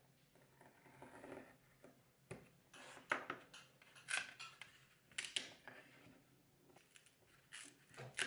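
Hobby knife scoring a thin cedar sheet, then several sharp light clacks from about two seconds in as the cut wood pieces, the knife and a plastic square are picked up and set down on a cutting mat.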